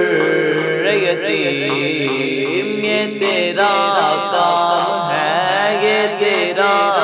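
Devotional naat vocals: a melismatic sung or chanted melody over a steady low vocal drone, with no clear words.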